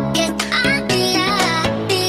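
Background music: an electronic track with a wavering melody over held bass notes.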